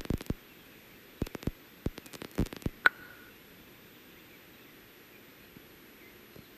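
A scattered run of sharp clicks and knocks over about the first three seconds, the last one followed by a brief high note; after that only faint steady hiss.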